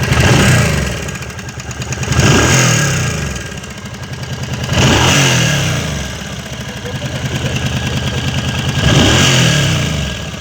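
Suzuki C50 Intruder's V-twin engine idling and blipped four times, each rev rising and falling over about a second, with the knocking that the owner puts down to the timing chains.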